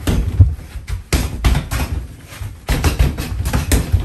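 Punches landing on a freestanding body-opponent dummy (BOB): dull thuds in quick flurries of several blows, with short gaps between the bursts.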